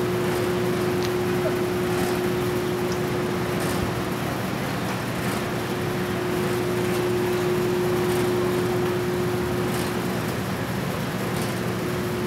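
A steady machine hum holding one constant tone over an even rushing noise.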